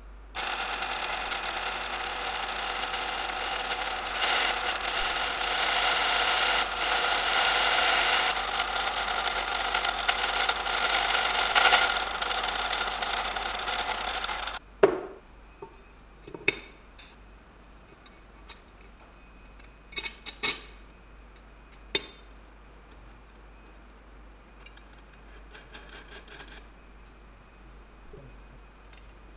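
Drill press running with its twist bit cutting into a steel bar held in a machine vise: a steady sound with several high pitches held in it, which stops suddenly about halfway through. Then a few sharp knocks and clinks of steel parts being handled.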